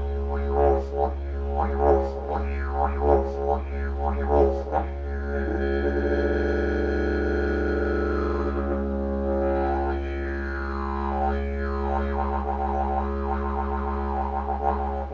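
Didgeridoo played as one deep, unbroken drone. Rhythmic pulses ride on it for the first few seconds, then it smooths into a held tone with slowly sweeping overtones, and the rhythmic pulsing comes back near the end.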